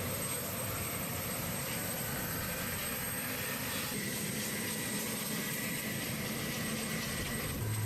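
UH-60 Black Hawk helicopter's twin turbine engines and rotor running, a steady noise with a faint whine.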